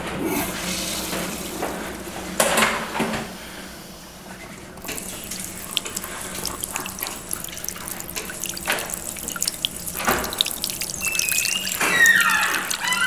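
Water tap running into a sink with splashing as hands are washed under it.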